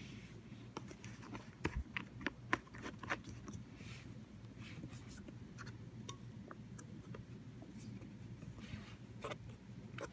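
Fingers handling a plastic lotion pump bottle: a quick run of sharp taps and clicks on the plastic about two seconds in, then sparser light scratches and ticks, with another few clicks near the end. A low steady hum lies underneath.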